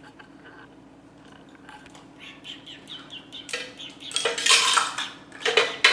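Kitchen utensils and dishes clattering, faint at first and louder from about three and a half seconds in.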